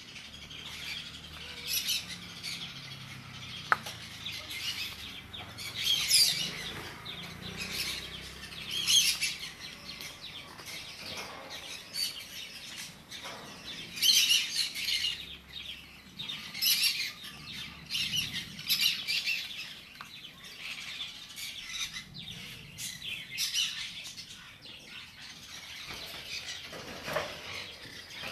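Small birds chirping and twittering in irregular high-pitched bursts every second or two.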